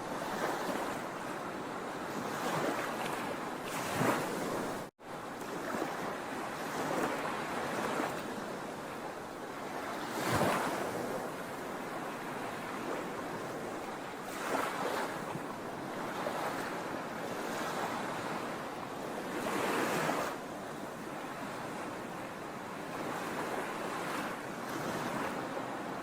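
Sea waves breaking and washing on a shore, swelling louder every few seconds. The sound drops out for an instant about five seconds in.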